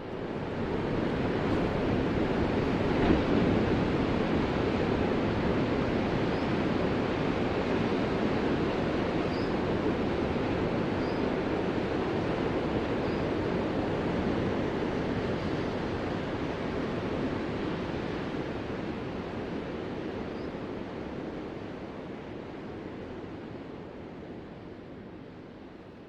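Ocean surf: a steady rushing wash of waves that slowly fades away over the last few seconds.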